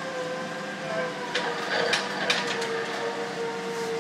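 A few sharp metallic clanks and chain rattles as a liquid-nitrogen-shrunk steam locomotive cylinder liner, hanging from a hoist chain, is guided into its cylinder. Under them runs a steady workshop machine hum with a whine that slowly falls in pitch.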